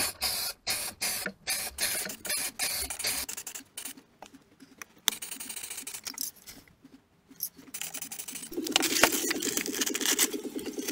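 Aerosol spray paint can being shaken, its mixing ball rattling in short bursts for the first few seconds, with a sharp click about five seconds in.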